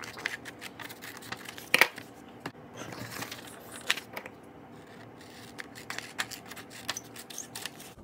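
Scissors snipping through a sheet of white paper in a run of short, irregular cuts, with the paper rustling between them; the loudest snip comes about two seconds in.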